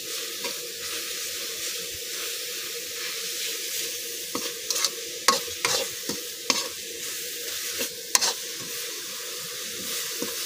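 A metal spatula stirs and scrapes grated coconut and sugar around a wok over a steady frying sizzle, with sharp clicks of spatula on pan now and then, mostly between about four and eight seconds in. This is the stage where the sugar has melted and the coconut filling is stir-fried until it dries.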